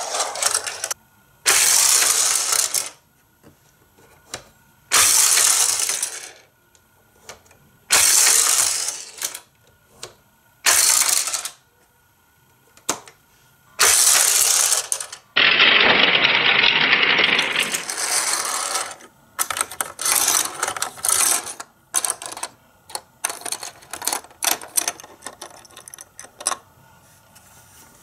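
Small die-cast Micro Machines car rolled by hand along a plastic toy track: a rolling plastic rattle about a second long, repeated five times with pauses, then a longer, lower run of about two seconds. Scattered short plastic clicks and taps follow.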